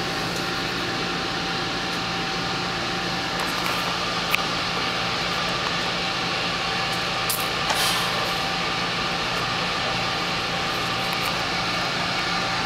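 Steady hum and rushing air of large ventilation blowers, with a few faint brief clicks about four seconds in and again near eight seconds.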